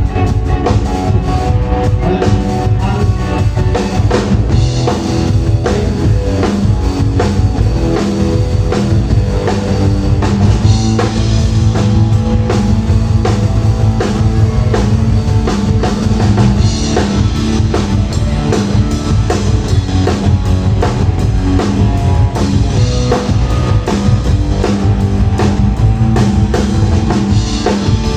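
A rock band playing live, with a drum kit keeping a steady beat under bass and electric guitar, as at a sound check.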